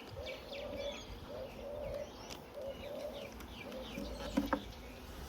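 A dove cooing in a repeated run of short, low notes, with small birds chirping higher above it. A brief clack about four seconds in.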